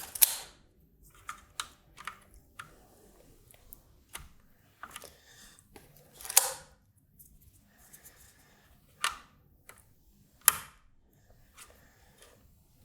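Irregular sharp clicks and taps, about nine spread out, the loudest about six and a half seconds in: toggle switches being handled and pressed into their seats in a circuit board.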